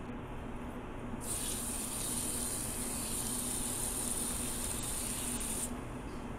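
Kitchen tap running water into a saucepan of blanched orange peels, refilling it for the second boil. The water comes on about a second in as a steady hiss and stops near the end.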